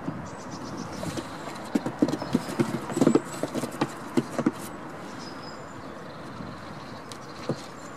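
Goat hooves knocking on a plywood board as the goats step about on it: a run of irregular clops, thickest about three seconds in.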